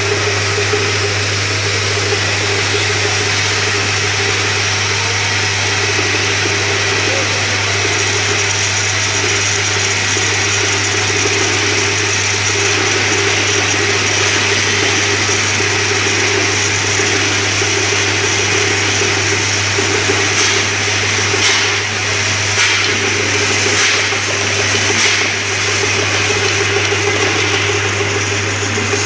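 Vibratory bowl feeder running: a steady low electromagnetic hum with the continuous rattle of small metal parts shaking along the bowl's spiral track. There are a few louder clatters about two-thirds of the way through.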